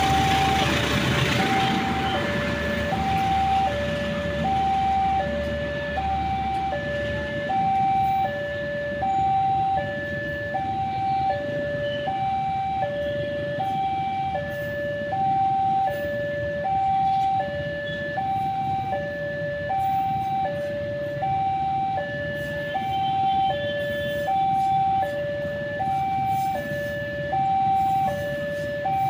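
Railway level-crossing warning alarm sounding a steady two-tone electronic hi-lo signal, the tones alternating about every half second, as a train passes. The low rumble of the rolling carriages fades out over the first several seconds.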